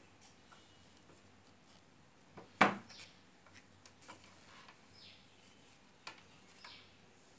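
Quiet handling of cloth insulating tape being tied around a toroidal transformer, with small clicks and one sharp knock a little over two seconds in. A bird chirps faintly a few times in the background, each a short falling note.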